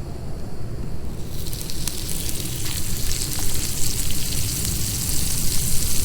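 Food sizzling in a hot pan, a dense crackling hiss that starts suddenly about a second in, over a low wind rumble.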